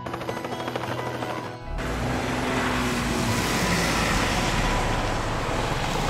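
Steady engine-like rushing sound effect for a toy hovercraft towing a toy car, with a low rumble, starting a little under two seconds in over background music.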